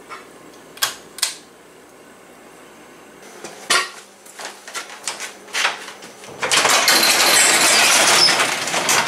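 A few sharp clicks and knocks, then a sectional garage door pushed up by hand, its rollers and panels rattling and clattering along the metal tracks for about two and a half seconds near the end.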